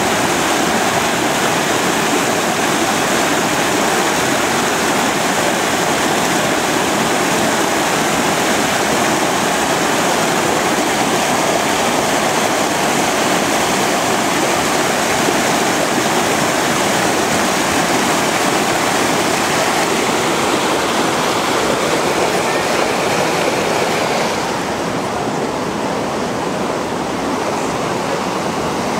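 Creek water rushing over rock ledges in a whitewater rapid: a steady, loud rush. About 24 seconds in it drops to a softer, duller flow.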